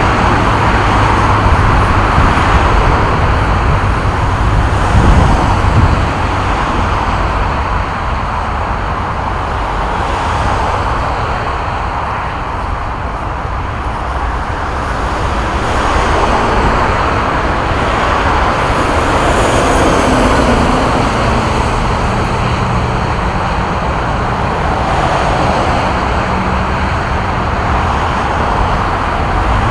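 Continuous motorway traffic: cars, lorries and buses passing at speed, their tyre and engine noise merging into a steady roar that swells and fades as individual vehicles go by, with a deep engine hum from heavy vehicles underneath.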